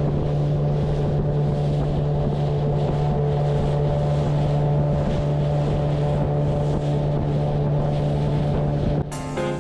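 Motorboat's outboard engine running steadily under way, a constant low drone. Music comes in near the end.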